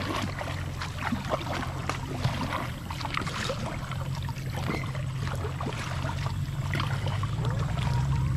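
Kayak paddling on a shallow creek: scattered small paddle splashes and drips over a steady low rumble of moving water.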